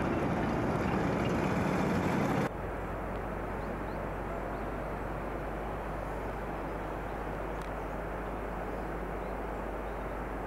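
Cargo truck driving past on a mountain road, loud engine and road noise that cuts off abruptly about two and a half seconds in. Then a steady hiss with a constant low hum.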